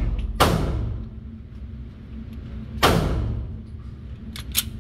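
Two pistol shots from neighbouring lanes of an indoor range, about two and a half seconds apart, each with a long echo off the walls, then a couple of light metallic clicks from a pistol being handled near the end. A steady low hum of the range's ventilation runs underneath.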